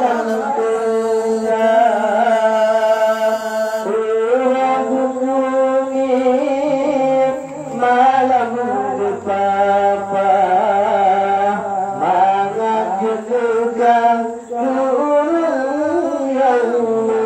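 A man singing an Acehnese qasidah, a devotional song, solo into a microphone, in long ornamented phrases whose pitch bends up and down, with only brief breaths between them.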